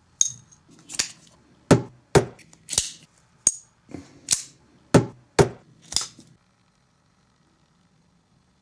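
A run of about eleven sharp metallic clicks and clacks, roughly two a second, two of them ringing briefly with a high tone; they stop after about six seconds.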